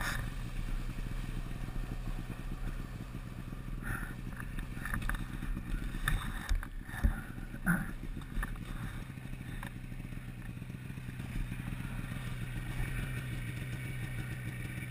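Snowmobile engine idling steadily, with scattered knocks and rustles around the middle as the machine is handled.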